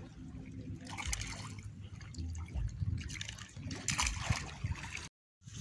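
Sea water splashing below a jetty as a hooked fish thrashes at the surface, with sharp splashes about a second in and again about four seconds in.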